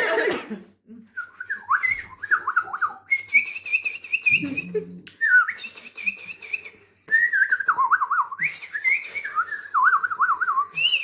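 A woman whistling an imitation of birdsong: short warbling, trilling phrases that alternate with held high whistled notes, in several bursts with gaps between them.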